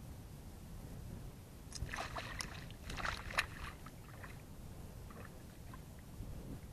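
Steady wind rumble on the microphone, with a short flurry of splashing and flapping about two to three and a half seconds in as a just-caught bass is let back into the lake.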